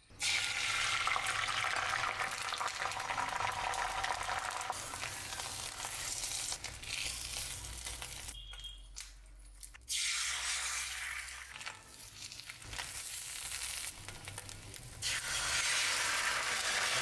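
Beaten egg sizzling in hot oil in a stainless steel frying pan as it cooks into a rolled omelette. The sizzle starts suddenly, drops away twice in the middle and swells again near the end as more beaten egg is poured in.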